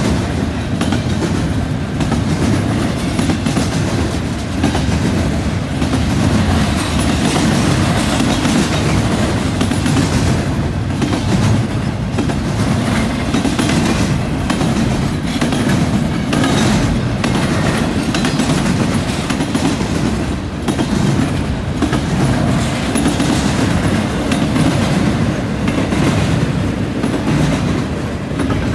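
Freight train cars rolling steadily past, their wheels clacking over the rail joints and junction switch.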